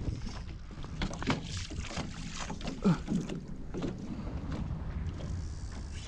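Scattered knocks and clatter on a small boat, with a short falling creak about three seconds in, over a low steady rumble.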